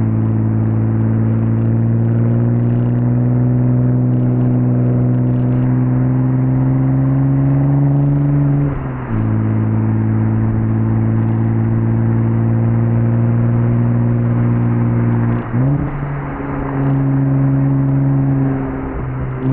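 Audi S4 B5's 2.7-litre twin-turbo V6 pulling under load, its note climbing steadily for about nine seconds before dropping sharply at a gear change. It then holds a steady note, with another break about fifteen seconds in and a brief dip near the end.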